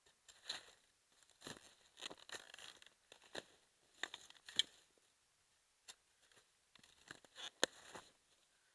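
Food preparation handling sounds: about a dozen short, scattered crinkling and tearing noises with light taps, coming irregularly with quiet gaps between.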